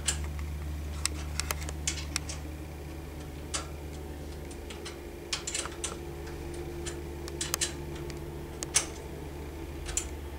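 Wrench working the bolts of an over-the-bar clamp wheelchair wheel lock as they are tightened: scattered light metallic clicks and clinks at irregular intervals, over a steady low hum.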